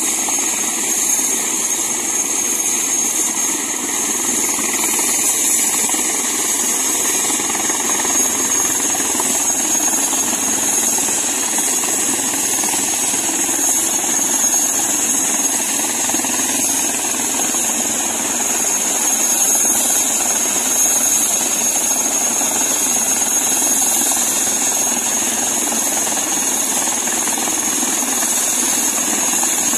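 Airbus H145 twin-turbine helicopter running on the ground with its rotors turning: a steady high whine over an even rush of rotor and engine noise.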